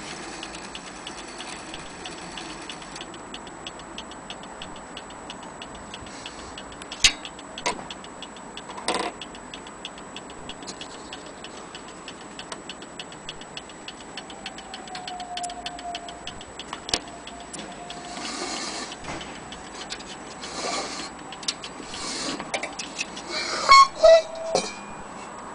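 Antique gilt brass dome mantel clock's pendulum movement ticking quickly and steadily, with a few sharp knocks as the clock is handled, the loudest near the end.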